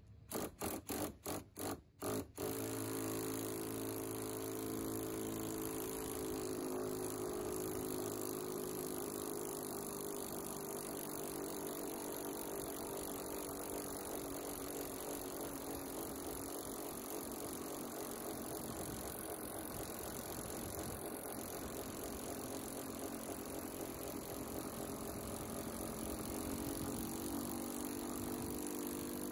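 Power drill turning the welded-on wheel nut of a pantograph roof tent's crank mechanism to raise the tent. A few short trigger blips, then a long steady drone, noisy, that cuts off suddenly at the end.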